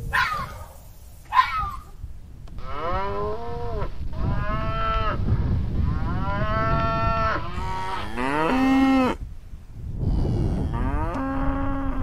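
Cattle mooing: about five long calls one after another, several rising and falling in pitch.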